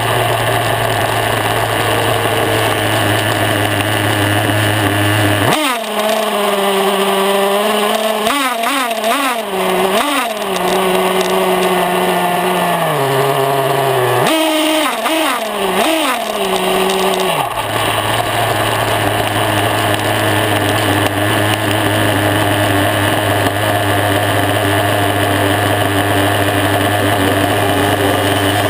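Force .21 nitro engine of an Ansmann Virus 3.0 RC buggy running at a steady idle. About six seconds in it is revved hard in a series of rising and falling blips for about ten seconds, then drops back to a steady idle.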